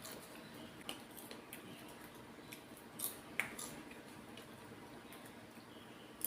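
Popcorn being quietly eaten and handled: a few scattered soft crunches and clicks over a low, steady room hum.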